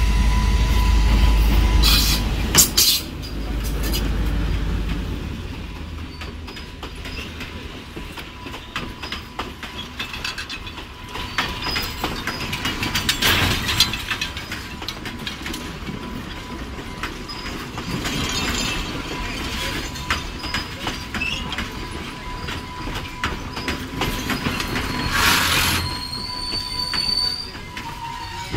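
Diesel-hauled passenger train passing: a heavy low rumble from the locomotive at first, then the carriages' wheels clicking steadily over the rail joints, with a thin steady high tone throughout and three loud surges of wheel noise, a couple of seconds in, around the middle and near the end.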